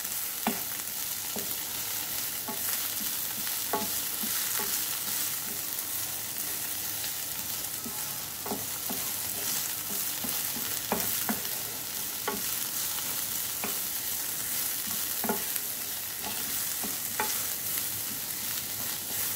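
Sorrel leaves and chopped shallot sizzling in oil in a frying pan, a steady hiss with scattered light taps and scrapes of a wooden spatula stirring them against the pan.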